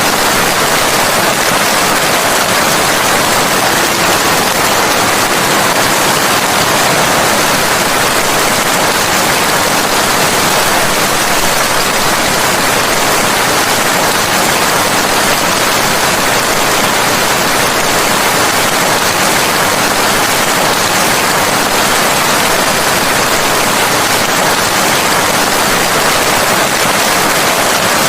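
Steady heavy rain: a dense, even hiss of falling rain that holds unchanged throughout.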